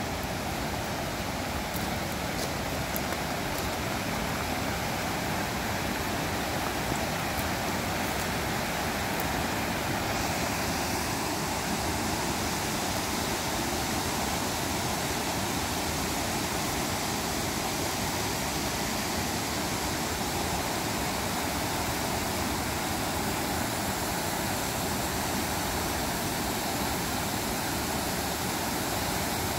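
Whitewater rapids of the Clackamas River rushing steadily close by, a constant full roar of water. A few faint clicks come in the first ten seconds or so.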